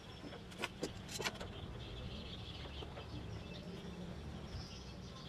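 Three or four sharp clacks in quick succession as steel spring clamps are snapped onto the edges of a plywood box. Under them run a steady low rumble and birds chirping.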